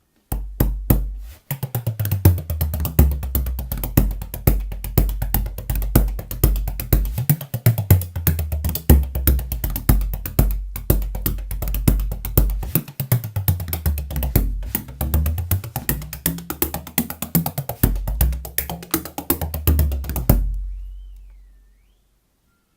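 An 18-inch by 6-inch Walton's tunable bodhrán played in a fast, continuous run of strokes, its deep low tone shifting up and down in pitch. The playing stops about 20 seconds in and the last stroke rings away.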